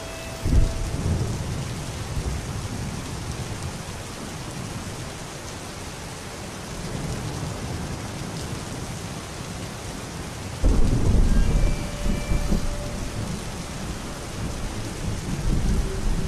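Steady rain with two rolls of thunder: one rumbles up about half a second in, and a louder, longer one breaks about eleven seconds in and rolls on for several seconds.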